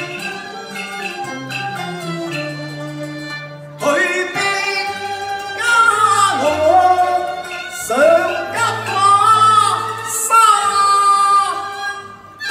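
Cantonese opera performance: a traditional ensemble led by bowed strings plays for about four seconds, then a singer enters, louder, with long sliding, ornamented phrases over the accompaniment.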